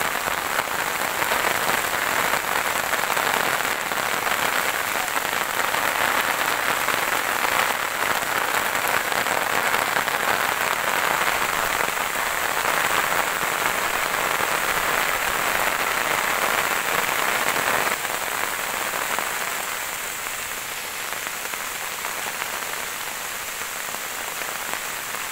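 Steady rain falling on leafy garden plants, a dense even patter that becomes a little softer about two-thirds of the way through.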